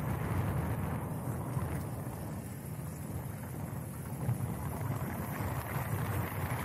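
Ford Freestyle driving along a road, heard from a camera mounted on the outside of the car: a steady rumble of wind on the microphone over tyre and engine noise.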